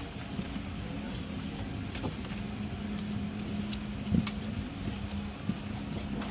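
Steady cabin hum inside a Boeing 717 airliner, with a constant low drone. The paper safety card is handled, giving a few light clicks and knocks, the loudest about four seconds in.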